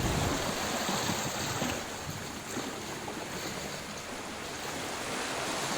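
Sea surf washing in a steady hiss of waves, easing a little midway and building again near the end.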